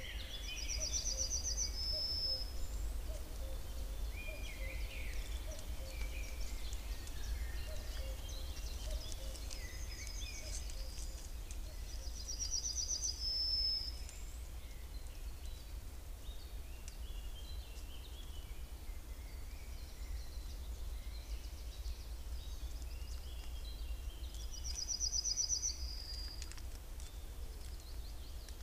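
Woodland birds singing: one bird repeats a short high trilled phrase ending in a flourish three times, about twelve seconds apart, while other birds call between, over a steady low hum.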